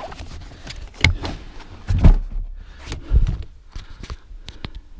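Knocks and clunks of car seat parts and a plywood bed board being moved about in a car's boot, with three louder thuds about one, two and three seconds in and a few small clicks near the end.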